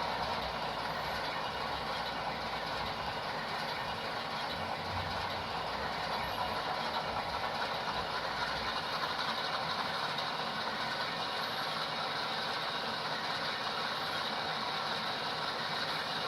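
Sound decoders in several HO scale model diesel locomotives (Intermountain ES44AC GEVOs and an MTH C44-9W) playing their prime-mover sounds together through small onboard speakers. The locomotives have just been started up at the same time and are running at idle with a steady mechanical chug.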